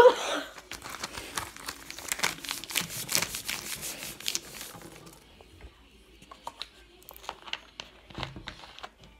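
A cough at the very start, then a sheet of paper crinkling and rustling as it is handled and folded for about four seconds. This is followed by quieter clicks of handling, and near the end a plastic soda bottle cap is twisted open.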